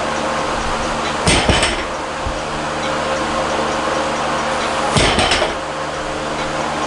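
Olympic barbell loaded with bumper plates to 140 kg being set down on the floor between reps. There are two touchdowns, about a second in and about five seconds in, each a thud followed by a short clanking rattle of plates and collars.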